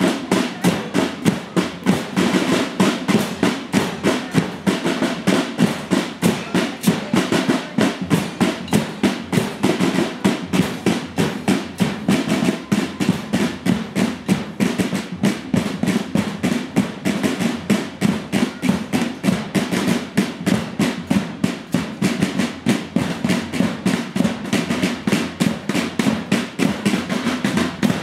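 Marching drum band of snare and bass drums playing a steady, unbroken marching beat.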